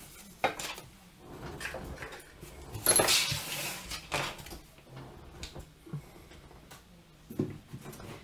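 Tarot cards being picked up and slid off a tabletop by hand, with light taps and knocks as they are gathered. The loudest is a rustle about three seconds in.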